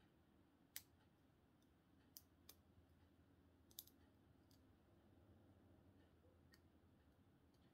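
Faint, scattered metallic clicks, about six over several seconds, as a short hook and tension wrench work the pins inside a heavy-duty ACE closed-shackle padlock during single pin picking.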